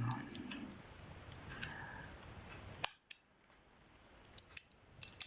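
Small metal parts of a Leatherman Charge TTi multitool clicking and clinking as they are handled and fitted together during reassembly. The clicks come irregularly, with a sharper one about three seconds in.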